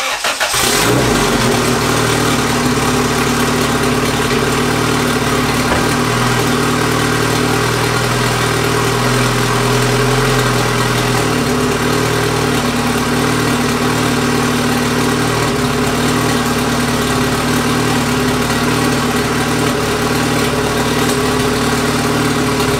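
Turbocharged Honda B-series LS/VTEC four-cylinder engine catching suddenly and settling into a steady idle on freshly fitted rod bearings. The knocking noise that the new bearings were meant to rule out is still there, so the bearings are not its cause.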